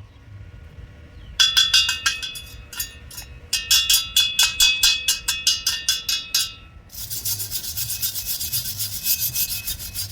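Steel being struck rapidly with a chipping hammer, about five or six ringing metal taps a second, in two runs, knocking slag off a stick weld. Near the end, a steel wire brush is scrubbed fast across the weld.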